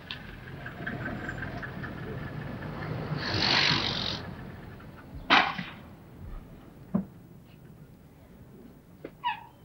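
A small saloon car's engine running as it pulls up and stops, with a rising hiss of tyres and brakes as it halts about three seconds in. A sharp click follows a couple of seconds later, then a lighter knock, as the driver's door is unlatched and swung open.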